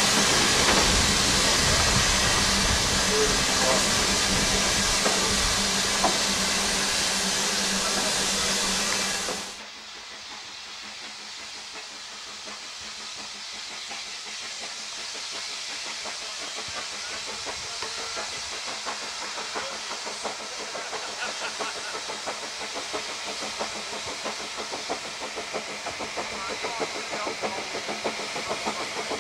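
Narrow-gauge train rolling past close by with a loud, steady hiss and rumble. After a sudden cut, a steam locomotive working up a grade toward the listener, its exhaust beats growing steadily louder as it nears.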